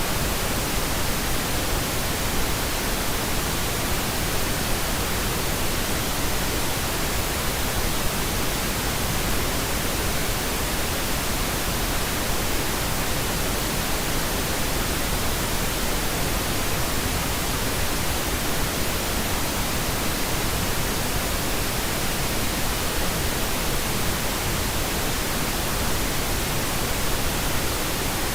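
Steady white noise: an even, unchanging hiss across the whole range from low to high, with no rhythm or events.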